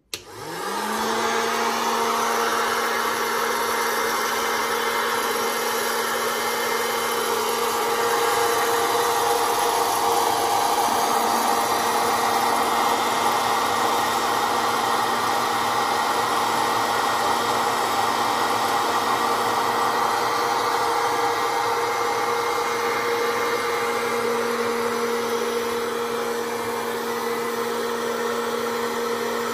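Hot-air popcorn popper switched on: its fan motor spins up within the first second, then runs with a steady whirring blow of hot air.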